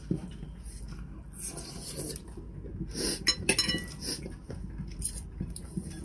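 Knife and fork clinking against a plate, with a few sharp ringing clinks about halfway through, over soft chewing and eating sounds.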